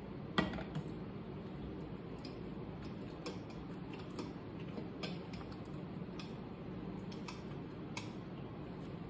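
A fork clinking irregularly against a bowl while mixing egg and fried potato, about a dozen light clicks with the loudest about half a second in, over a steady low hum.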